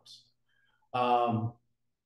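A man's voice: the hissy tail of a word, a pause, then one short voiced sound about a second in, with dead silence around it.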